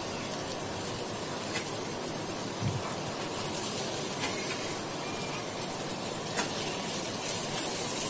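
Onion-tomato masala sizzling steadily in a frying pan, with a few light clicks of a metal spatula against the pan.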